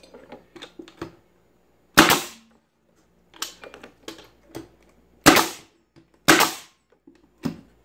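Pneumatic stapler driving staples into wood trim: three loud bangs spaced one to three seconds apart and a softer fourth near the end. Between them come light knocks of the boards being positioned by hand.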